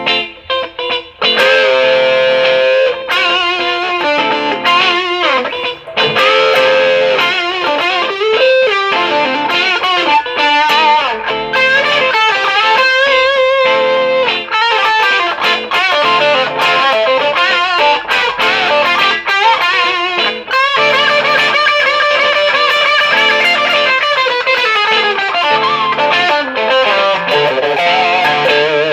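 Electric guitar, a Gibson R9 Les Paul reissue with Bustbucker humbuckers, playing single-note lead lines with string bends and vibrato. It runs through a Wampler Tumnus overdrive into a Marshall DSL1 valve amp for a mildly overdriven tone. The phrases pause briefly about six and twenty seconds in.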